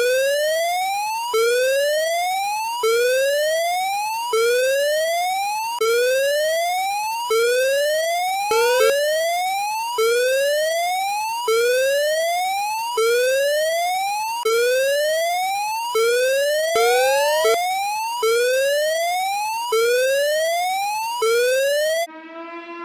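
Electronic whoop alarm tone: a siren-like tone that rises in pitch over about a second and a half, then snaps back and repeats, about fifteen times in a row. It stops abruptly near the end, and a quieter wavering tone takes over.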